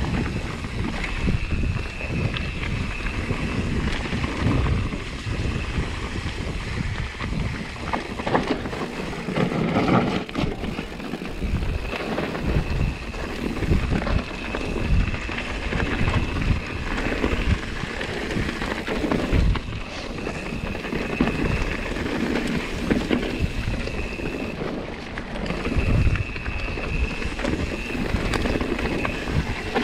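Loud, steady rush of fast-flowing mountain water, with wind buffeting the microphone in irregular low gusts.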